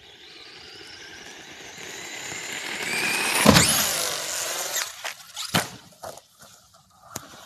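Radio-controlled car's motor whining and rising in pitch as it speeds toward a ramp, loudest with a hard knock about three and a half seconds in as it hits the ramp and launches. The motor revs up sharply while the car is airborne, then several separate knocks follow as it lands and tumbles.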